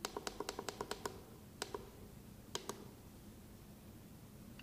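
Push buttons on a K3 Pro wall-mounted infrared thermometer clicking as they are pressed to step through its settings menu: a quick run of about nine clicks in the first second, then a pair of clicks about half a second later and another pair about a second after that.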